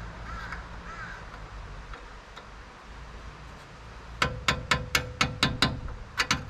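Hammer tapping a steel brake-hose retaining clip home into its bracket on the front suspension: a quick run of about nine sharp metallic taps, about four a second, starting about four seconds in, with a ringing tone under them.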